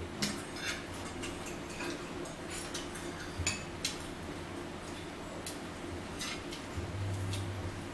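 Cutlery clicking and scraping against a plastic plate and a salad bowl during a meal: scattered short, light clinks, roughly one every second or so.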